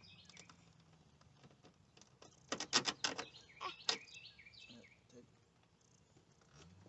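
A quick run of sharp clicks and knocks about two and a half to four seconds in, from hands working on a car tail light assembly, with a few bird chirps.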